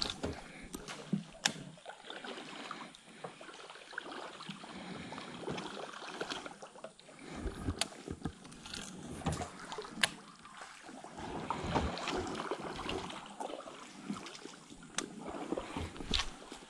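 Water swishing and lapping around a narrow wooden log canoe as it moves on a small river. The noise swells and fades every few seconds, and a few sharp clicks or knocks stand out.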